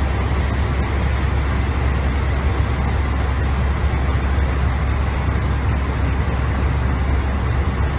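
Steady, deep rushing noise of an airliner cockpit at cruise altitude: constant airflow and engine noise with no change.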